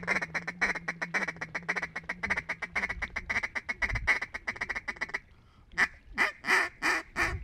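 Mallard duck call blown in a fast feeding chuckle, about nine clicky notes a second, breaking off about five seconds in; then a short run of five louder quacks near the end.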